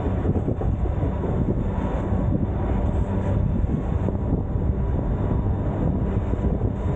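White Pass & Yukon Route narrow-gauge passenger train running along the track: a steady low rumble of the cars' wheels on the rails, heard from an open car platform.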